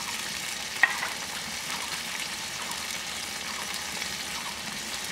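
Onions, green chilies and garlic paste frying in oil in an aluminium pot: a steady sizzle, with one sharp click about a second in.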